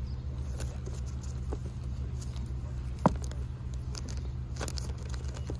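Plastic-bagged comic books being flipped through in a box: soft rustles and light clicks of the bags, with one sharper click about three seconds in, over a steady low hum.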